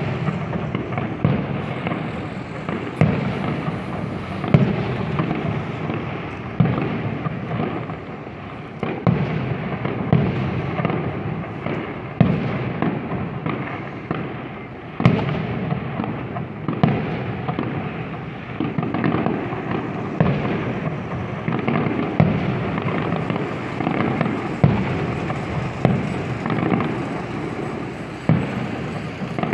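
Aerial fireworks display: firework shells bursting one after another, a sharp bang every second or two, each echoing, with continuous noise from the display between the bangs.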